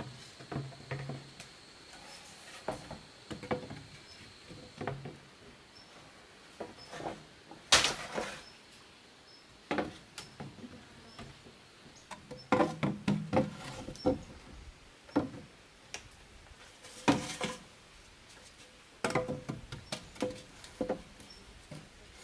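Hollow green bamboo poles knocking and clunking against one another as they are laid into a bamboo wall: irregular knocks, some in quick clusters, with a couple of louder strikes.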